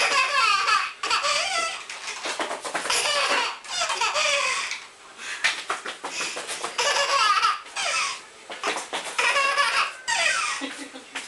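A toddler laughing hard: high-pitched belly laughs in repeated bouts, with short breaks for breath in between.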